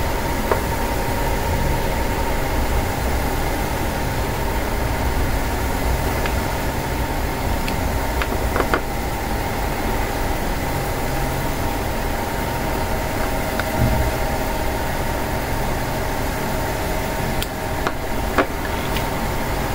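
Steady mechanical hum with a low rumble throughout, with a few small sharp clicks of a screwdriver and the small metal-and-plastic vape pod being handled, one about nine seconds in and another near the end.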